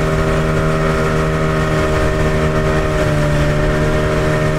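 Outboard motor of an inflatable dinghy running at a steady cruising speed, one even engine tone, with wind rumbling on the microphone.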